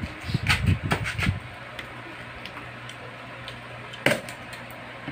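A cluster of low thumps in the first second and a half, then a few sharp clicks and clinks of tableware at a meal table, over a steady low hum.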